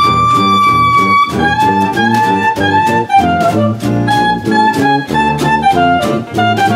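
Upbeat jazz background music: a horn, likely saxophone, holds a long note then plays a short melody over a steady beat.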